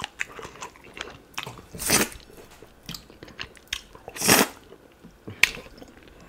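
Close-miked wet eating sounds of ogbono soup and fufu: lip smacks, chewing, and two longer slurps, about two seconds in and just past four seconds, as stretchy ogbono soup is sucked from the fingers.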